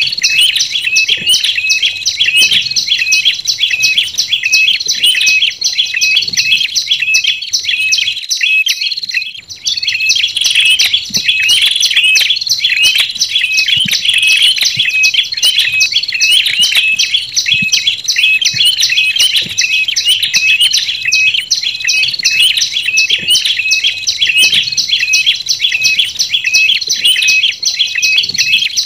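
Tailorbird lure calls, a mix of prenjak lumut and ashy tailorbird (prenjak kepala merah) song: rapid, high, repeated chirps, several a second and dense. They break off briefly about eight seconds in and then resume.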